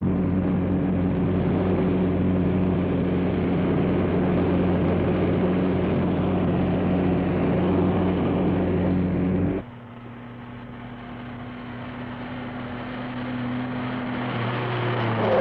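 A sports car's engine running at steady speed. About ten seconds in, the sound cuts to a quieter, steady engine note that grows louder as the car approaches, and near the end the pitch drops as it slows.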